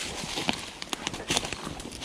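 Footsteps crunching through thick dry leaf litter in irregular steps, with leaves and brush rustling as a branch is pushed aside.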